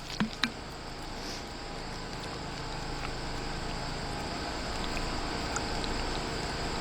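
Two light clicks, then a steady low hum with a high, even buzz, slowly growing a little louder.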